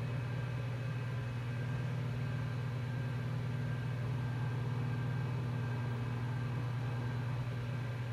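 IBM PC XT running: a steady hum and whir from its power-supply fan and spinning hard drive, with no drive-seek clicks.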